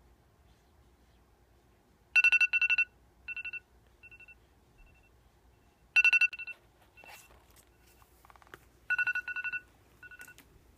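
iOS alarm tone ringing: bursts of quick, high electronic beeps begin about two seconds in. Each burst trails off in fainter repeats, and the bursts come three times about three seconds apart. Faint clicks and rustling between the bursts.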